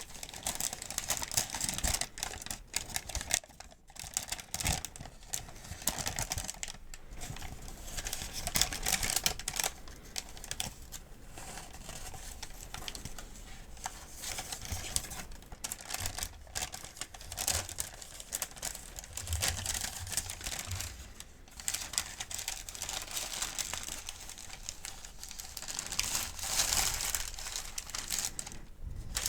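Paper medication guide sheets crinkling and rustling as they are handled, a dense stream of fine crackles with louder flurries about eight seconds in and near the end.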